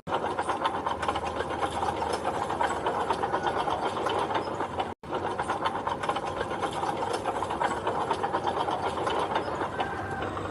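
Machinery running with a fast, rhythmic mechanical clatter; the sound drops out for an instant about halfway through, then carries on.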